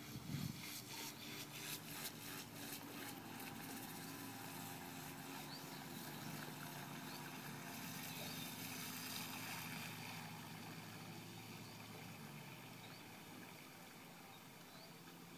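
Motor of a homemade radio-controlled model runabout boat running steadily as the boat speeds across the water, growing louder to a peak a little past the middle and then fading as it heads away.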